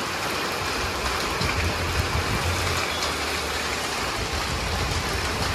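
Heavy rain pouring down, a dense steady hiss of rain on the street and roofs, with an uneven low rumble underneath.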